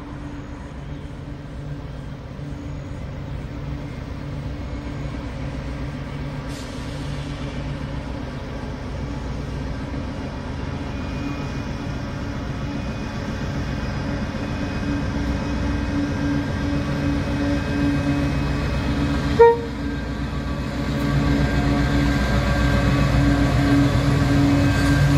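QR National 5000-class diesel locomotive hauling a coal train of hopper wagons towards and past, its engine drone growing steadily louder as it nears. About twenty seconds in there is one very short toot of the horn.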